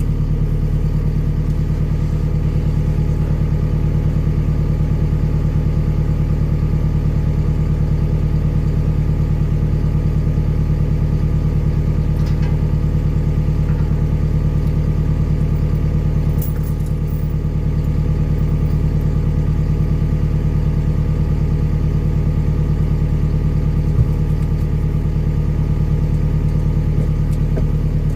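Tracked skid steer's engine running steadily at an even speed, with one short click about three quarters of the way through.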